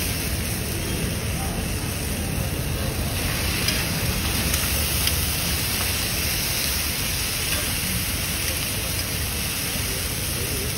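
Egg mixture sizzling steadily on a hot flat iron griddle over shredded parotta, a constant crackling hiss.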